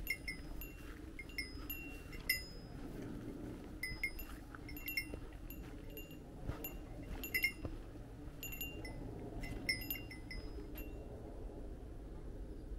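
A small metal bell tinkling in irregular single strikes and short clusters, each a clear high ring. It stops about eleven seconds in.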